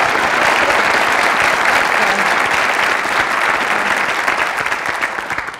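Studio audience applauding, a dense steady clapping that fades out near the end.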